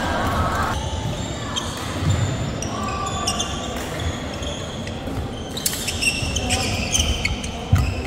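Badminton being played on an indoor court: scattered sharp racket strikes on the shuttlecock and brief high shoe squeaks on the court floor, the loudest strike near the end.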